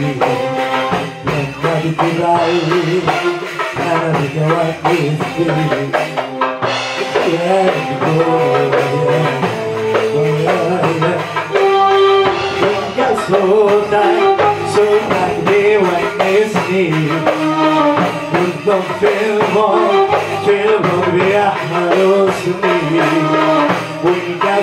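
Live Arabic-style pop music played through a PA: a male voice sings into a microphone over an electronic keyboard and hand percussion keeping a steady beat.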